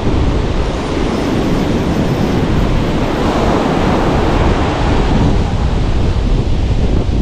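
Sea surf breaking and foam washing up the sand, with wind buffeting the microphone; the wash swells about three seconds in.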